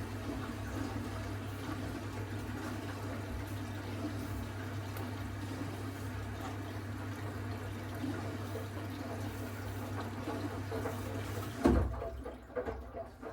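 Miele W1 front-loading washing machine taking in water: a steady mains hum with the rush of water flowing into the drum, cut off with a thud about twelve seconds in as the flow stops, followed by a few irregular knocks.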